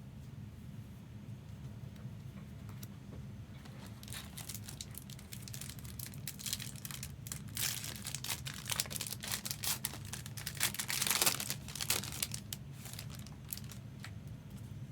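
Crinkling and tearing of trading-card packaging, such as foil pack wrappers and plastic sleeves, as packs are opened and cards handled. Quiet at first, it picks up about four seconds in and is busiest in the middle, over a steady low hum.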